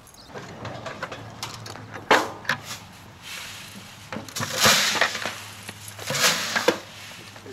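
Dogs digging and scrabbling at a rat burrow in loose dirt and straw: a run of sudden crunching, scraping rustles, the loudest a burst about two seconds in and a longer one about four and a half seconds in.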